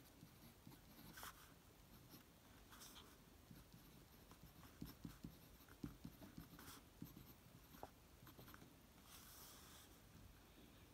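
Faint scratching of a Jinhao 250 fountain pen's medium #5 nib writing on paper: short strokes and small ticks as the letters are formed, busiest in the middle, with one longer stroke near the end.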